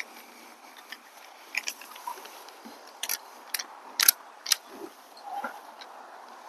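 Rope handled against a horse's body: a handful of sharp, short clicks over a faint hiss, the loudest about four seconds in.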